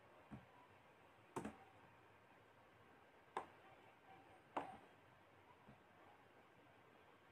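About four short, sharp computer-mouse clicks over near silence, one of them doubled.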